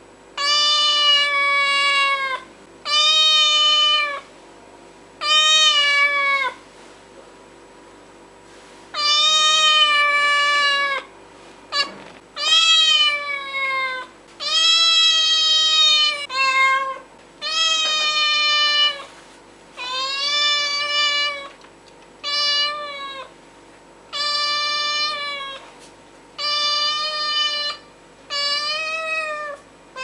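Domestic cats meowing in a series of drawn-out meows, each about a second long, with short pauses between them and one longer pause about a third of the way through. A brief click sounds near the middle.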